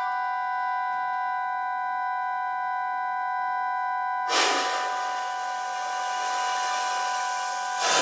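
Contemporary recorder and accordion duo: the accordion holds a steady high chord of several notes, and about four seconds in a sudden breathy rush of air sounds over it, with another at the end.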